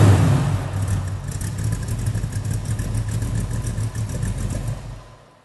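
Chevrolet V8 in a 1929 Ford roadster pickup hot rod, settling back from a rev at the start into a steady idle, then fading out near the end.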